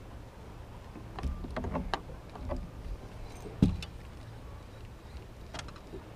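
Handling noise on a fishing boat's deck: a cluster of small clicks and knocks, then one heavy thump about three and a half seconds in, over a steady low rumble of water and wind against the boat.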